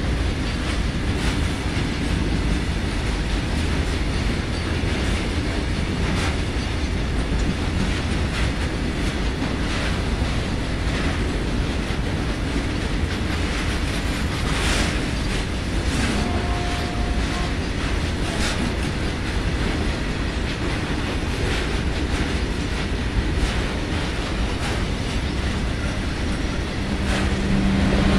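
Freight train of BTPN tank wagons rolling slowly past while climbing a steep grade: a steady rumble of wheels with regular clickety-clack over rail joints, and a brief wheel squeal a little past halfway.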